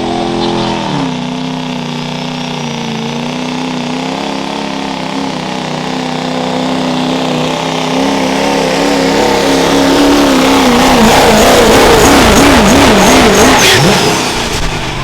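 Turbocharged diesel pickup truck pulling a sled at full throttle. The engine's pitch drops about a second in and then holds steady. The engine grows louder, its pitch wavers up and down, and the sound falls away near the end.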